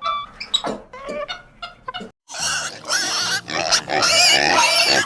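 Animal calls: loud, harsh and wavering, starting just after a brief gap about two seconds in. Before the gap there are a few short pitched notes.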